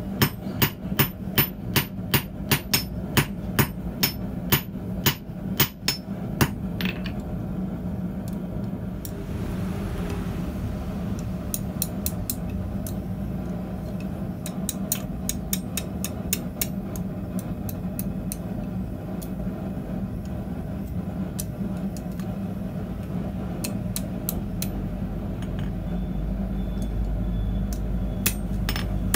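Blacksmith's hammer striking a hot 6 mm steel rod on the anvil in a quick even rhythm, about two and a half blows a second, stopping about six seconds in. After that come only scattered lighter taps over a steady low hum.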